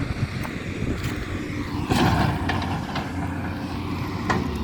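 Heavy diesel excavator engines running steadily under load, with a couple of short knocks about two seconds in and near the end.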